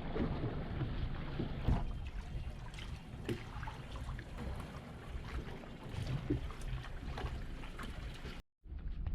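Water lapping and splashing around a boat, with a low rumble underneath and many scattered small knocks and splashes. It cuts off abruptly near the end.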